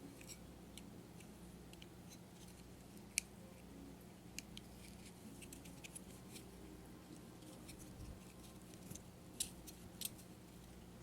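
Faint, scattered small clicks and taps of plastic pump parts being handled and fitted together, with one sharper click about three seconds in and two more near the end, over a faint steady low hum.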